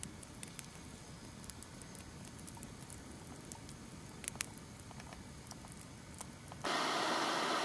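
Wood campfire crackling: scattered small snaps and pops over a quiet background. Near the end it gives way abruptly to a louder steady rushing noise.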